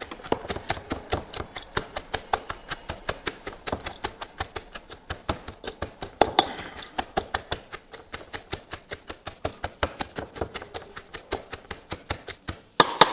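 Shredded red cabbage being pounded in a stainless steel bowl for sauerkraut: quick, even thuds about four a second, with a couple of louder knocks near the end.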